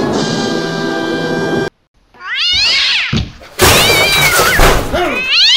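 A short stretch of music cuts off abruptly, then a cat meows three times in long rising-and-falling yowls.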